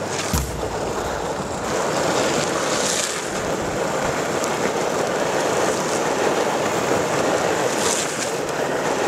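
Longboard wheels rolling fast over asphalt, mixed with wind rushing over the microphone: a steady, rough rushing noise with no pauses.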